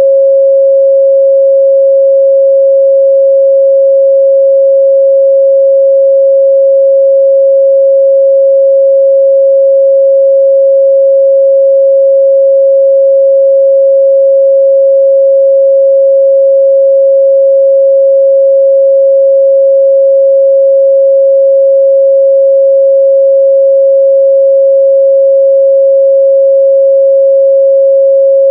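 A pure 545 Hz sine-wave test tone, held steady and loud at one pitch without change.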